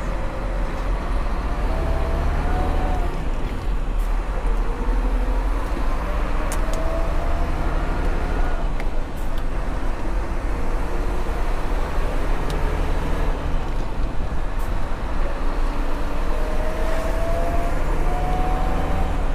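Heavy truck's diesel engine running on the road: a steady low drone, with a whine that climbs slowly and breaks off about three times as the truck pulls away.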